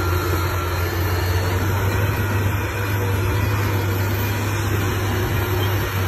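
Loaded heavy truck's diesel engine running with a steady low drone as it drives across a dirt site, over a constant noisy rush.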